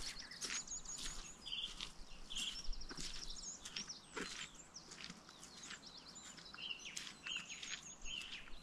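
Several small birds singing and calling: many short high chirps and repeated quick trills, overlapping throughout.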